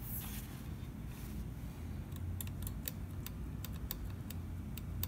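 Light, irregular metallic clicks and taps from handling a rifle's small trigger parts and tools, about a dozen in the second half, over a faint low hum.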